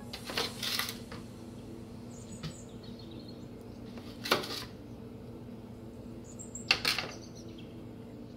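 Plastic spatula scraping across an aluminium baking pan three times as it lifts off baked zucchini pizza bites, over a steady low hum.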